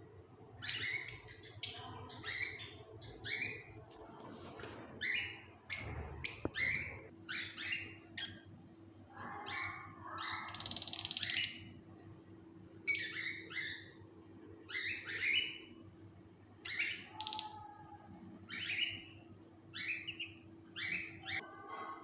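Small caged parrots chirping: short, sharp calls repeated roughly once a second, with a longer, noisier call about ten seconds in. A faint steady hum runs underneath from about seven seconds in.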